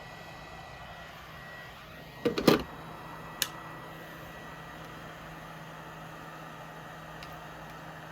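A short clatter of knocks about two seconds in, then a single sharp click about a second later, over a steady background hum.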